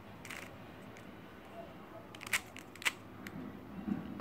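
Magnetic GAN Monster Go 3x3 speed cube being turned by hand, its layers giving a few sharp clicks as they snap into place, the loudest two a little past two seconds in.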